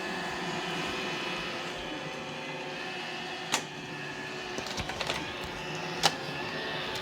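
Roomba E5 robot vacuum running, a steady motor whine and hum. There are two sharp knocks, about three and a half and six seconds in, with a few lighter ticks between them.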